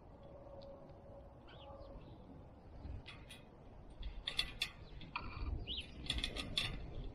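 Small birds chirping in short, curved chirps, with a run of sharp clicks and taps from about four seconds in.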